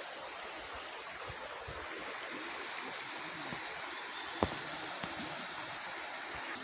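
River water flowing, a steady rushing sound, with a single sharp click about four and a half seconds in.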